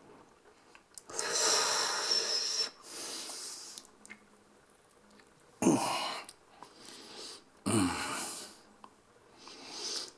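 A man's loud breathy mouth noises made while miming eating: a long hissing breath about a second in, then two sharp grunts that drop in pitch, and a rising breath near the end.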